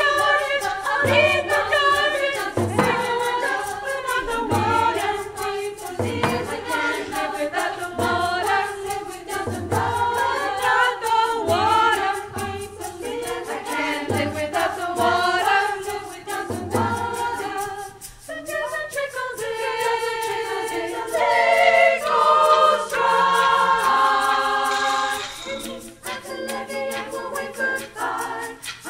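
Women's choir singing, with a frame drum struck in a slow, even beat about once every second and a quarter. About two-thirds of the way in the drum stops and the voices move into long held chords.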